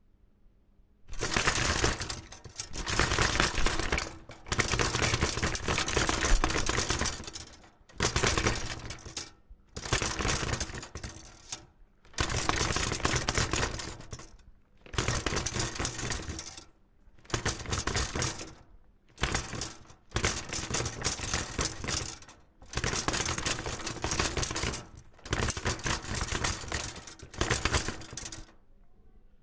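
Longswords rattling, a metallic clattering in about a dozen bursts of one to three seconds each, separated by short pauses.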